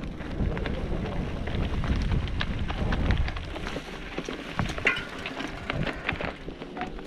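Mountain bike rolling down a loose, rocky singletrack: tyres crunching and crackling over gravel, stones and dry grass, with a constant stream of small clicks and rattles. A low rumble under it thins out about halfway through.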